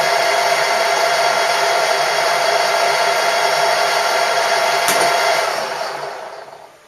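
A machine-tool motor running steadily with a whine, switched off with a click about five seconds in and spinning down to a stop.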